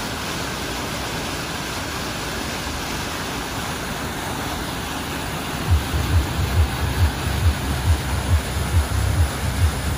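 Fountain jet splashing steadily into the water, a continuous rushing noise. From about halfway, low thumps come about twice a second.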